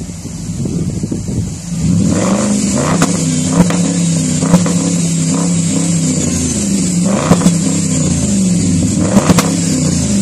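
Audi Q7 diesel engine heard at the exhaust. It runs quietly at first, then from about two seconds in it is revved in a series of rising and falling blips, with a few sharp clicks among them.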